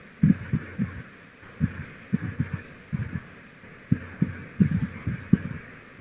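Soundtrack of a coating promo video played over a video call: muffled low thumps in an uneven beat, about fifteen in all, over a faint steady hiss.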